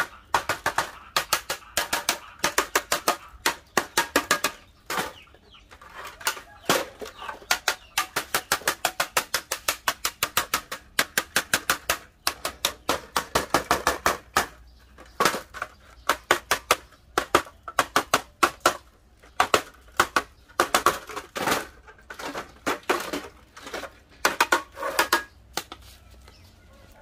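A thin metal tool scraping rust off the rusty sheet-steel housing of an old gas stove, in fast runs of scratchy strokes, several a second, with short pauses between runs. The scraping stops near the end.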